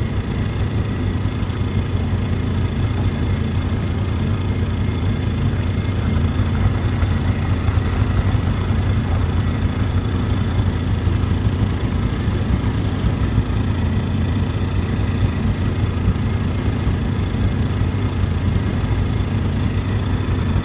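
Small engine on a gigging boat running steadily at an even, low hum that holds the same pitch throughout.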